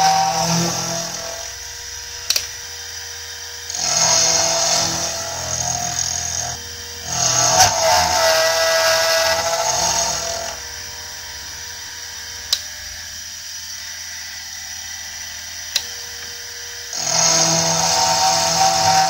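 Milling machine end mill cutting into the metal spike of a warhammer head. The cutting noise, with a high ringing tone, comes and goes in passes: loud near the start, again from about 4 to 10 seconds with a short break, and again near the end. In between, the spindle runs with a quieter steady hum, and there are a few sharp clicks.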